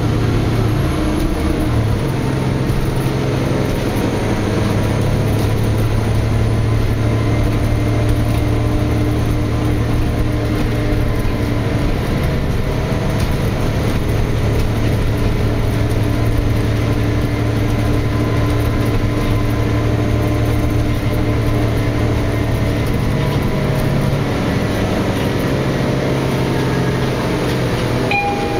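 Interior ride sound of a Nova Bus LFX city bus under way: its Cummins ISL9 diesel runs with a steady low hum, over continuous road and body noise.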